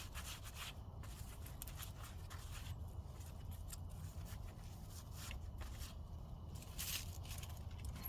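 Soft, scattered scraping and rustling of soil as sweet potatoes are dug out of a grow bag by hand, over a steady low rumble.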